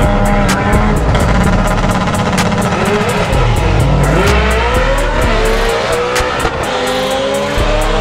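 Car engine at high revs at a drag strip. Its pitch dips sharply about halfway through, then climbs steadily as it accelerates. Music with an even ticking beat plays underneath.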